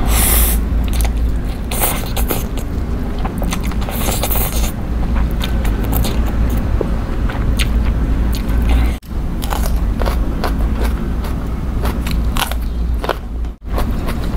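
Close-miked eating of spicy instant noodles: slurping the noodles up with chopsticks and wet chewing, with many small smacks and clicks. Louder hissy slurps come right at the start and again around four seconds in. A steady low hum runs underneath, and the sound cuts out briefly twice, near nine seconds and just before the end.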